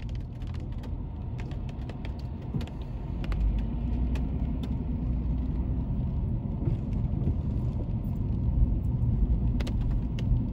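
Inside a moving car: the steady low rumble of engine and tyres, with a faint engine hum settling in a few seconds in and scattered light ticks.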